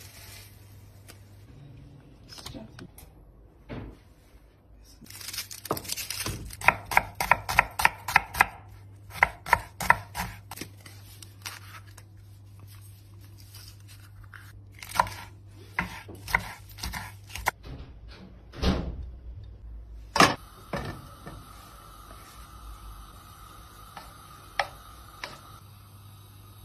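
Kitchen knife chopping vegetables on a wooden cutting board: a quick run of sharp chops from about six to ten seconds in, then slower, scattered chops and single knocks.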